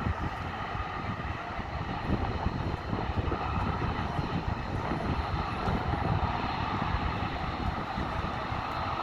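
Bombardier Dash 8 Q400's twin Pratt & Whitney PW150A turboprops running, a steady drone with a low, uneven rumble underneath.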